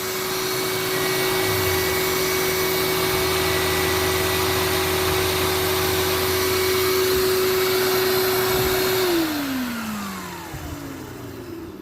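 Shop vac running with a non-electric Hoover brush attachment on its hose, the attachment's brush driven by the vacuum's suction: a steady whine that, about nine seconds in, falls in pitch and fades as the motor is switched off and spins down.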